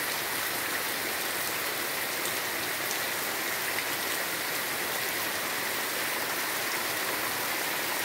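Heavy rain falling steadily, with water running off a roof eave.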